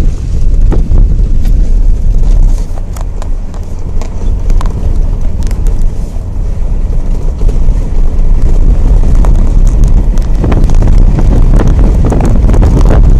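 Strong wind buffeting the microphone: a loud, unpitched rumbling blast that surges in gusts with crackles, easing a little in the middle and building again near the end.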